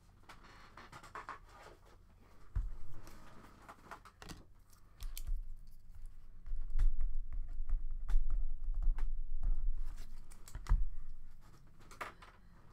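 Typing on a computer keyboard: irregular runs of quick key clicks, with dull low thuds on the desk that are loudest in the middle stretch.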